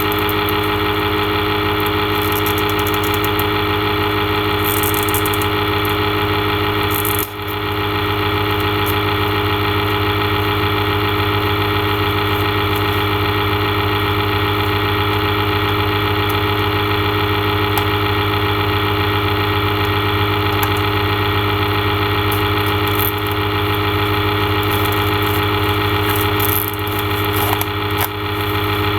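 A loud, steady mechanical hum holding several steady tones, with faint crinkles of plastic wrap being peeled off a CD box set at times, near the start and again toward the end.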